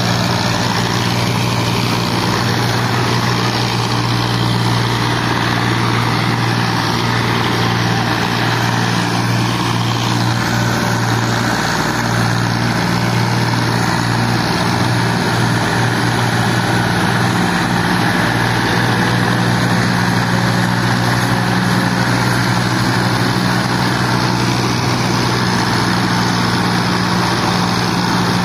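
Diesel tractor engines, a Massey Ferguson among them, running hard together as they pull and push a heavily loaded sugarcane trolley: a steady, loud, low drone that holds constant throughout.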